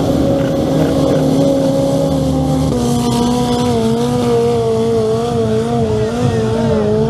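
645 hp turbocharged Honda engine of an off-road buggy running hard at high revs as it hydroplanes across water. The engine note is steady, drops slightly about two and a half seconds in, then wavers up and down.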